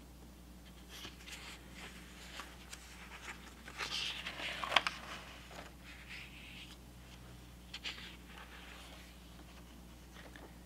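Paper pages of a spiral-bound Erin Condren LifePlanner being turned by hand. Soft rustling builds to a sharp snap of a page about halfway through, with a lighter flick a few seconds later. A faint low hum runs underneath.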